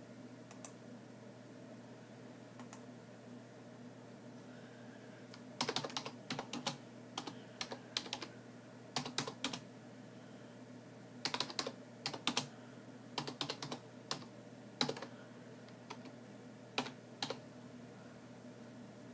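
Typing on a computer keyboard: short bursts of keystrokes starting about five seconds in and stopping shortly before the end.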